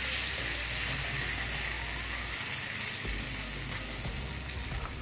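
Thin batter sizzling steadily as it cooks in a teaspoon of oil on a hot tawa (flat iron griddle).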